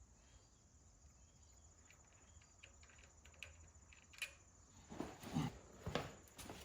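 Faint scattered clicks of metal hand tools and small hardware being handled, then a few louder knocks and rattles about five seconds in, during work on a tractor starter's wiring.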